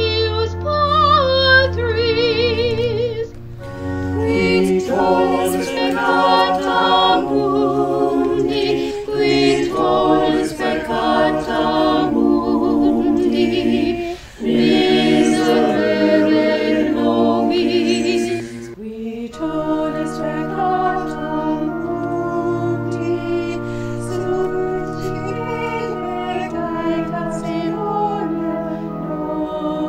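Choir singing a sacred Mass setting in sustained, chord-like lines. It opens with a single high voice singing with wide vibrato before the full choir comes in.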